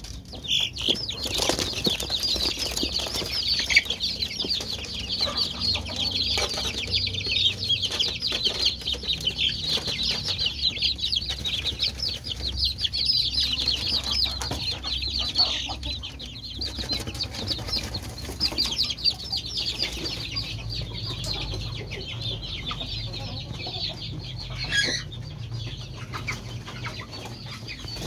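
A flock of young kampung chickens, about five weeks old, peeping continuously in a dense chorus of short high-pitched chirps, with occasional wing flapping and scuffling. The chorus thins a little in the last third.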